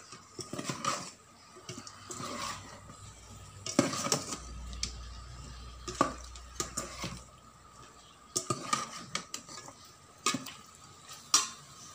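Metal ladle stirring chicken pieces and spices in a metal rice-cooker pot: irregular scrapes and clinks against the pot, with a few sharper knocks.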